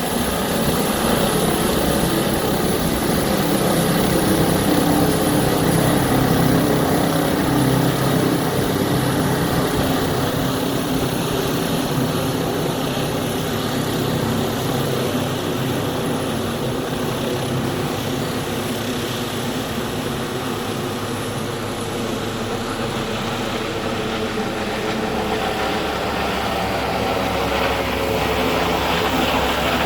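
Airbus H145 D3 twin-turbine helicopter in flight shortly after takeoff: five-blade main rotor and turbines running loud and steady.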